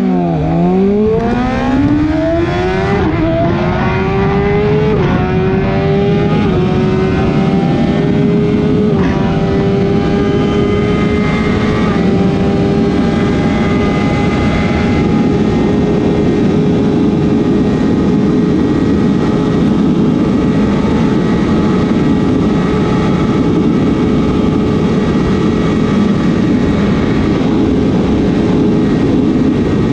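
BMW S1000RR's inline-four engine pulling hard at full throttle. Its pitch climbs in steps through the first dozen seconds, then holds steady at high revs near top speed, under a steady rush of wind noise.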